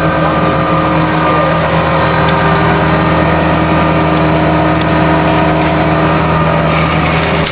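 Crane truck's engine running at a steady speed, a constant low hum with no change in pitch.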